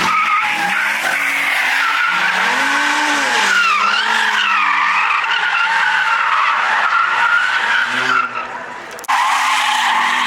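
Car tyres squealing in a long, wavering screech over a high-revving engine, as in a burnout or drift. The screech breaks off about eight seconds in and starts again about a second later.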